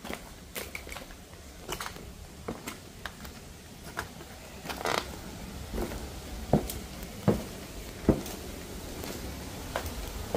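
Footsteps crunching over debris and grit, about one step a second, with three heavier steps a little past the middle.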